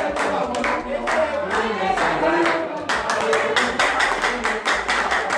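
A congregation singing a praise song together, with steady rhythmic hand clapping.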